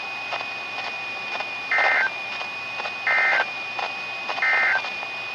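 Three short bursts of the Emergency Alert System's SAME digital data tones, the end-of-message code that closes a NOAA Weather Radio warning, evenly spaced about 1.3 seconds apart. A faint steady high tone runs underneath.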